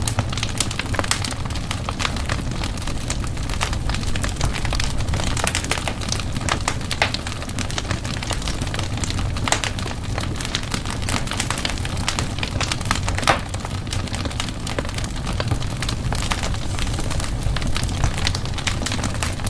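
Wood fire burning in a fireplace, with frequent irregular crackles and pops over a steady low rumble of the flames.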